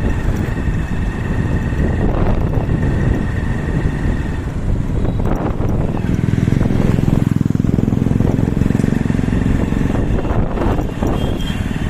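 A motor vehicle engine running, growing heavier about six seconds in and easing off after about ten seconds.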